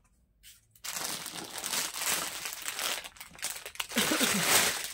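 Clear plastic packaging crinkling as a folded top inside it is handled. The rustle starts about a second in and keeps on, densest near the end.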